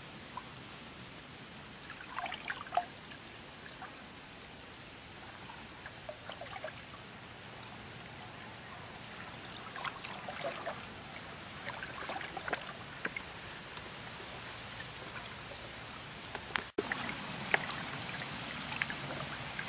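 Water sloshing and dripping as a person wades through a muddy stream with a plastic bucket: small scattered splashes over a faint steady hiss. The hiss gets louder near the end.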